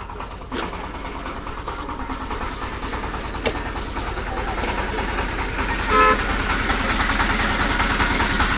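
A vehicle engine running close by and growing louder, with a short horn beep about six seconds in.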